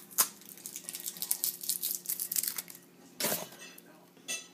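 Plastic clicking and rattling as a GoPro Hero 3 camera and its black plastic mount are handled and pressed at, trying to release the camera: a sharp click just after the start, a run of small quick clicks through the middle, and a louder rustle about three seconds in.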